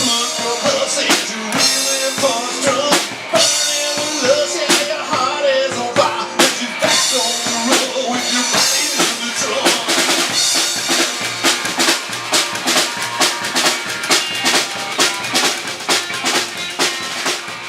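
Rockabilly band playing live, with the drum kit's snare and bass drum prominent in a steady, driving beat over pitched instruments.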